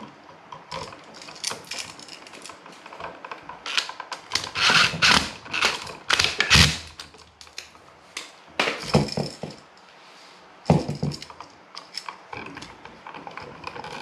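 A plastic electrical receptacle and stiff copper house wires handled and bent at a wall box: a run of small clicks, scrapes and rattles, densest around the middle, with a sharp click a little later.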